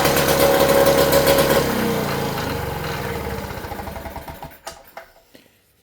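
Tecumseh HSK870 two-stroke engine running at high speed, then cut off a little under two seconds in and spinning down, its beat slowing and fading until it stops.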